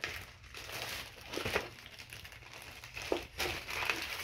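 Plastic poly shipping mailer crinkling and rustling in irregular bursts as it is gripped and pulled at to be opened.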